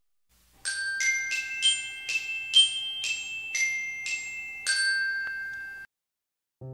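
Short jingle of about ten bright, glockenspiel-like struck notes that ring on and overlap, starting about half a second in and cutting off abruptly near the end.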